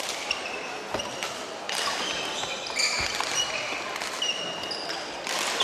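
Sports shoes squeaking on a wooden court floor and sharp pops of badminton rackets hitting a shuttlecock during a doubles rally, with more squeaks and hits from neighbouring courts in a large sports hall.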